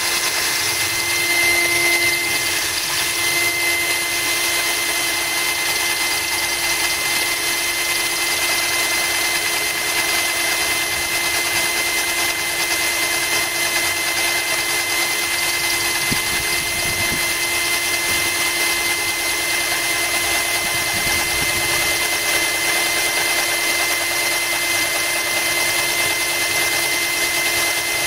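Cordless drill running at a steady speed, its bit grinding into a glass bottle that is kept wet by a trickle of water, with a steady high whine.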